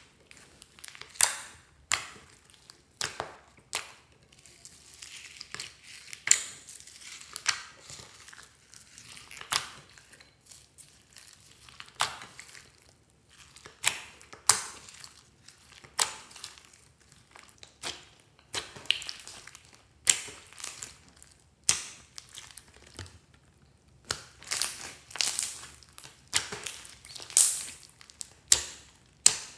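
Hands squeezing and kneading white slime full of small foam beads, making irregular sharp crackles and pops, roughly one or two a second.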